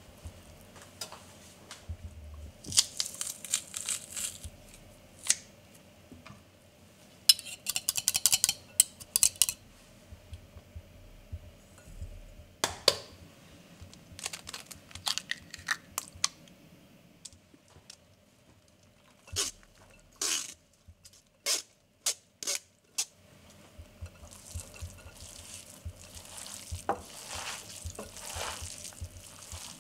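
Food being prepared in a glass mixing bowl: scattered clinks and taps against the glass, and a quick run of crackly clicks about seven to nine seconds in. Near the end come the steady rubbing sounds of hands kneading minced beef, rice and cabbage together.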